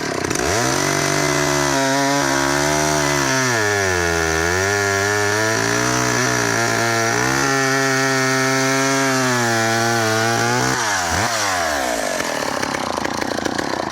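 54cc two-stroke McCulloch Mac 2-10 chainsaw running at high revs through a cut in a log, its pitch dipping briefly about four seconds in as the chain loads, then the revs falling back near the end.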